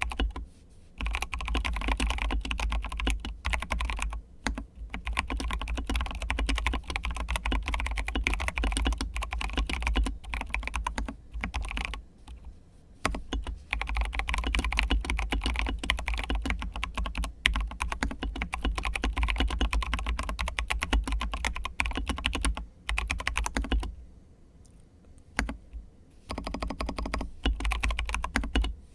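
Fast, continuous typing on a PLA75 mechanical keyboard with lightly lubed T1 tactile switches and OSA-profile PBT keycaps: a dense run of key clicks and bottom-outs. The typing breaks off briefly a few times, with a longer pause about 24 seconds in before it resumes.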